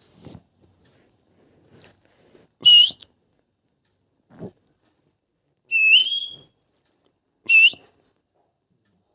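Young plum-headed parakeet calling: three short, shrill, whistle-like calls, the middle one longer and stepping upward in pitch, with a few faint knocks between them.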